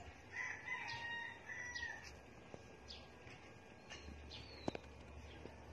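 Faint animal calls: one drawn-out, steady call lasting about a second and a half near the start, then a few short bird chirps and a single sharp click.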